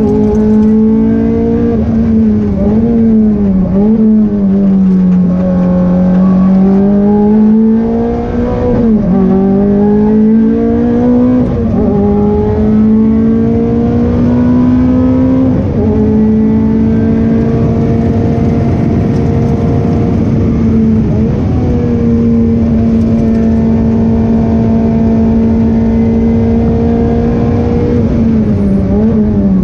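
Ferrari 430 Challenge's V8 engine heard from inside the cockpit at speed on track. The engine note climbs and drops repeatedly, with several sudden quick jumps in pitch, and holds at one steady pitch for several seconds at a time in the second half.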